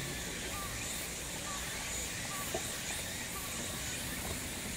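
Outdoor ambience at a pond: a steady hiss with small, faint chirps about once a second.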